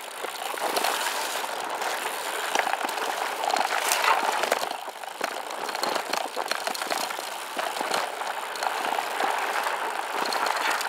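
Scott Addict Gravel 10 gravel bike rolling over a dirt and gravel fire road: steady tyre crunch with the bike rattling and clicking over the rough surface.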